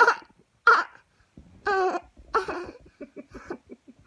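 A toddler laughing in separate bursts: breathy outbursts, a couple of short high-pitched squeals, and a run of quick little giggles near the end.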